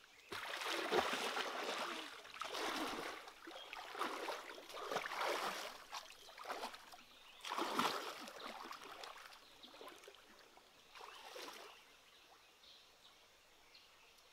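Water splashing and sloshing in a series of surges as a person wades through a shallow stream pool and sweeps her hands through the water, dying down near the end.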